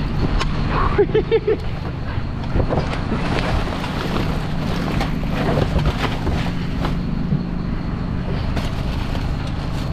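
Rear-loader garbage truck's engine running steadily close by, with plastic trash bags rustling and a plastic bin knocking as it is tipped into the hopper. A few short pitched pulses sound about a second in.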